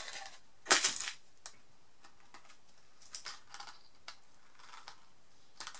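Light, scattered clicks and small clinks of metal jewellery findings and pliers being handled on a cardboard surface, the sharpest click just under a second in.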